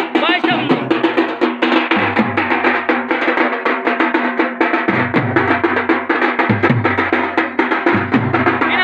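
Dhol drums beating a fast, dense rhythm, with deep strokes that drop in pitch every second or so over a held melody line.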